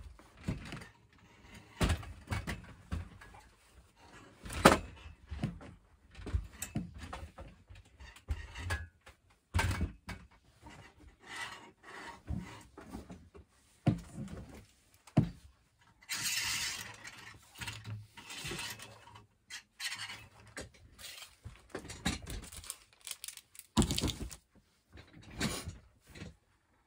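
Irregular knocks, thumps and rustling as boxes and stored supplies are moved and rummaged through, with one sharp thump about five seconds in and a longer stretch of rustling and scraping in the latter half.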